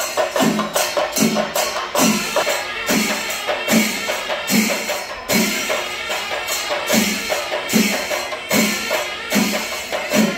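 Kerala temple drum ensemble (chenda melam): chenda drums keeping a steady beat, somewhat under two strokes a second, under continuous clashing of ilathalam hand cymbals.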